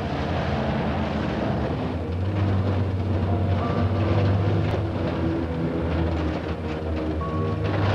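Car engine running and the car driving along the road, a steady low hum with road noise.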